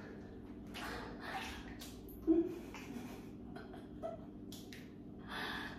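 Thick bath slime squelching softly as a person shifts and lifts a leg in the tub, mixed with a few short, hissy breaths. A brief low sound, the loudest moment, comes a little over two seconds in.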